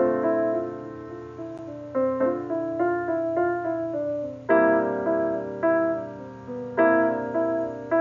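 Background piano music: a slow, gentle melody of single notes and chords, each struck and left to die away.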